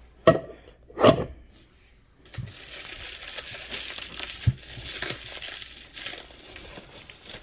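Packaging crinkling and rustling as items are unwrapped, steady from about two seconds in, after two short knocks near the start.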